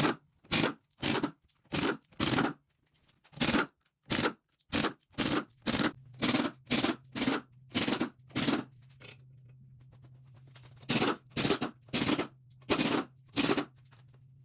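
Impact wrench with a 19 mm thin-wall impact socket, fired in about twenty short hammering bursts on the car's lug nuts, with a pause of a couple of seconds partway through. A faint low hum runs under the second half.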